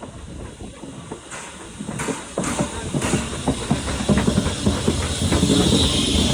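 Steam locomotive drawing up close, its rumble and rapid knocking growing steadily louder, with a steady hiss of steam over the last second or so.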